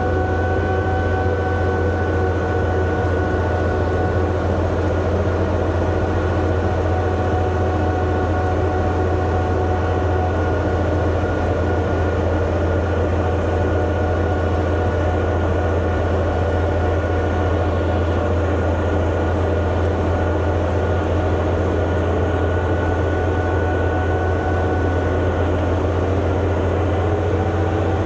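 Bulldozer diesel engine running steadily under load while pushing a pile of chicken litter, a strong low drone with a steady higher whine over it.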